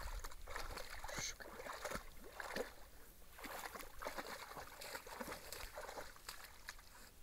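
An Irish Setter wading through shallow water and reeds: irregular small splashes and sloshing with rustling stems, growing fainter near the end.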